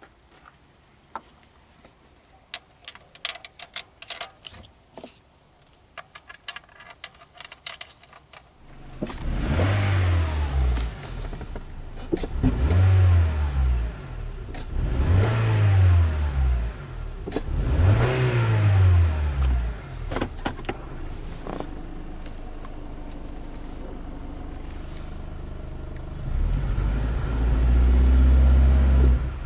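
A few light clicks, then the Honda Fit's L15A four-cylinder engine comes in about nine seconds in and is revved four times, each rev rising and falling over a couple of seconds. It then settles to a steady run and is held at raised revs, louder, near the end. This is the engine the owner says misfires when the throttle is pressed.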